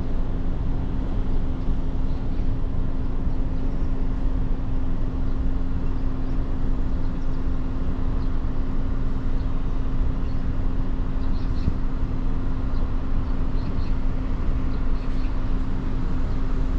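Steady rushing of a mountain stream's flowing water, with a faint constant hum underneath.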